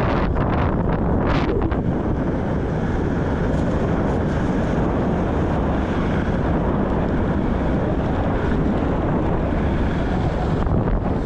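Steady loud wind rush buffeting the microphone of an action camera on a moving bicycle.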